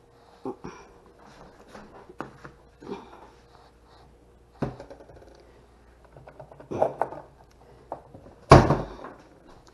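Kitchen handling sounds: a series of knocks and clunks as things are set down and picked up on a counter, with a heavy thump near the end, over a faint steady hum.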